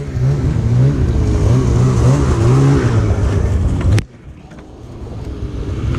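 Snowmobile engine idling close by, with a steady but wavering, unsteady tone. It cuts off abruptly about four seconds in, and a quieter engine sound then swells up toward the end.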